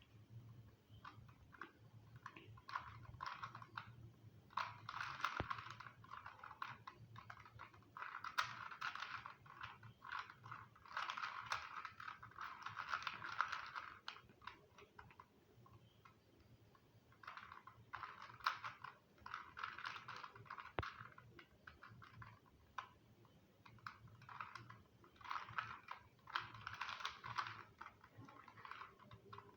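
2x2 Rubik's cube being turned by hand, its plastic pieces clicking and clacking in quick runs of turns, with short pauses between the runs.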